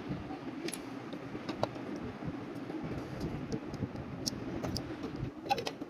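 Plastic building bricks of a partly built model helicopter clicking and ticking as they are handled, a few scattered sharp ticks over a steady background noise.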